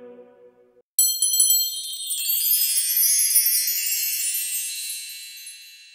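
The last held chord of a male a cappella klapa choir dies away. After a moment of silence, a bright jingling bell and chime shimmer starts suddenly and fades slowly, as a Christmas logo sting.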